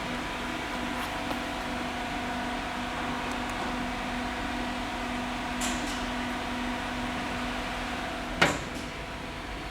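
Steady machine hum made of several fixed tones, with a few faint clicks and one sharper click about eight seconds in.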